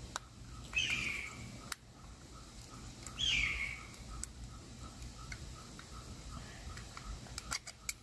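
Small clicks and scrapes of a screwdriver working apart a plastic power mirror switch, with a cluster of quick clicks near the end. Two short high squeaks fall in pitch, about two and a half seconds apart, and are the loudest sounds.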